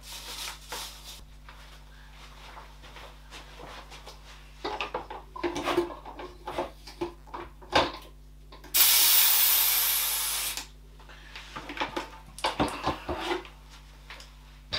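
Hand-pump pressure sprayer spraying water in one hiss of about two seconds, starting about 9 s in. Before and after it come scattered small knocks and rustles of handling leaves and a plastic tub.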